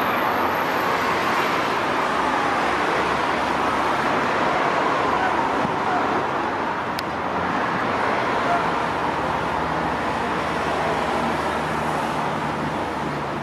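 Steady roar of dense road traffic, with faint distant voices calling now and then.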